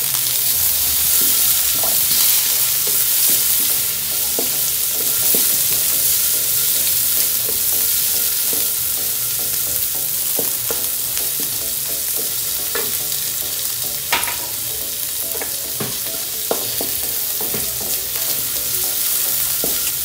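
Garlic, ginger and sliced onion sizzling in hot oil in a stainless steel wok, stirred with a wooden spatula that clicks and scrapes against the metal now and then, with one sharper tap about fourteen seconds in.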